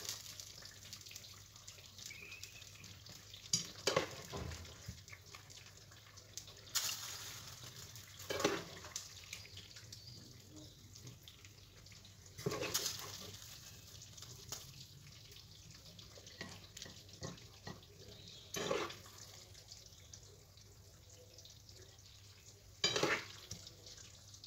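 Chicken curry being ladled from the pot into a ceramic bowl: a handful of short, separate knocks and wet splashes a few seconds apart, over a faint steady hiss.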